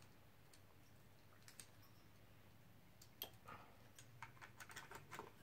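Faint, scattered small clicks and taps from a stock Intel CPU heatsink being handled and lined up over the processor. The clicks come more often in the second half.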